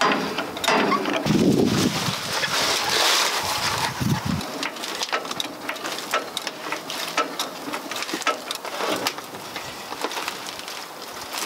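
Hydraulic floor jack being worked by its long handle to lift the front of a truck: repeated irregular clicks and metal knocks, with a few heavier clunks in the first half.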